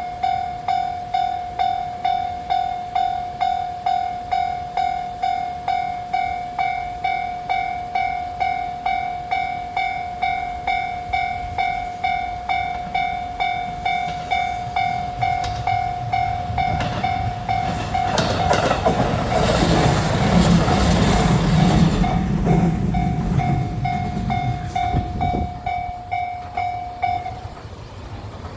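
Japanese level-crossing warning bell ringing steadily, about two rings a second. About two-thirds of the way through, a diesel railcar passes, its engine rumble and wheel clatter swelling over the bell and then fading. The bell stops shortly before the end.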